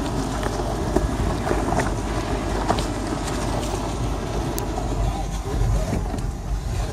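Toyota FJ Cruiser crawling over a rough, snowy dirt track, heard from inside the cab: a steady low engine and drivetrain rumble, with scattered knocks and rattles as the tyres and body go over rocks and ruts.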